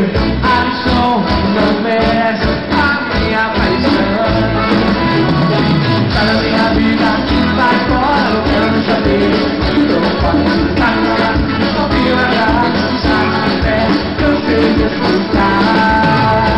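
Live band playing a song through the stage sound system: acoustic and electric guitars with drums and a steady high ticking percussion part, loud and unbroken throughout.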